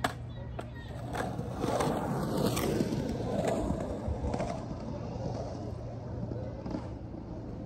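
Skateboard wheels rolling on concrete as the rider pushes off and rides away, the rolling growing louder over the first few seconds and then fading. A sharp click near the start and another near the end.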